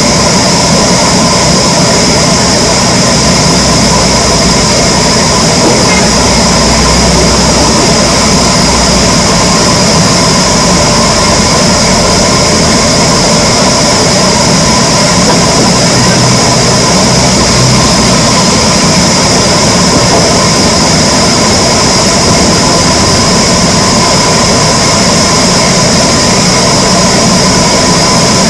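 Wood-cutting saw machinery running loudly and steadily, with a constant high whine over a low rumble.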